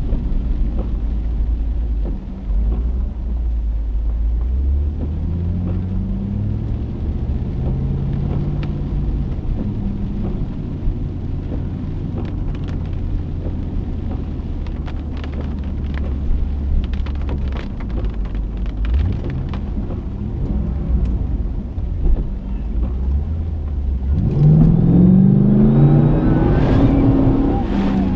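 A car driving through rain-flooded streets, heard from inside the cabin: a steady low engine and road rumble with the engine note rising and falling. Scattered sharp ticks come in the middle, and about 24 seconds in a louder rush builds as the car ploughs through deep standing water that sheets over the windshield.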